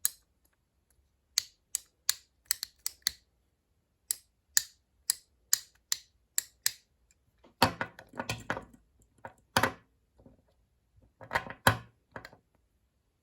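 Hand-held plastic fidget toy being clicked: quick runs of small sharp clicks, with two louder bouts of rattling and scraping handling noise, one about eight seconds in and one about eleven seconds in.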